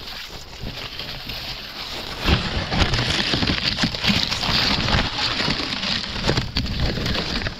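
Dense rustling and crackling, like dry cane leaves and stalks being pushed through or trampled, growing much louder about two seconds in.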